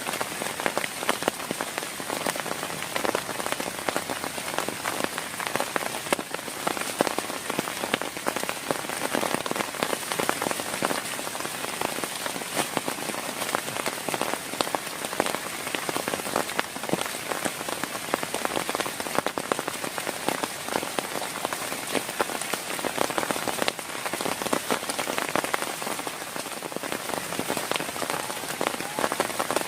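Heavy rain falling steadily, a dense patter of countless drops striking a surface.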